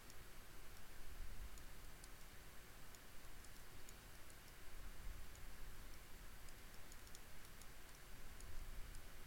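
Faint, scattered clicks of a computer mouse, several in quick runs, over a steady low hiss and hum from the recording microphone.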